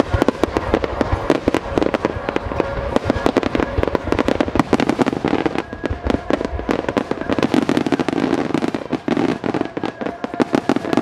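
Dense barrage of fireworks shells going off in rapid succession: many sharp bangs and crackles a second, overlapping with no break.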